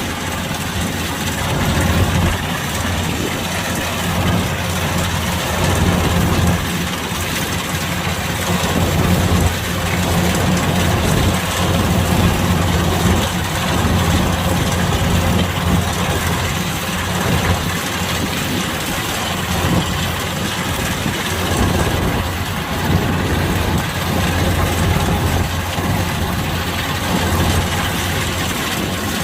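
Kubota DC-105X combine harvester's diesel engine and machinery running steadily under a continuous deep hum with a broad mechanical noise on top.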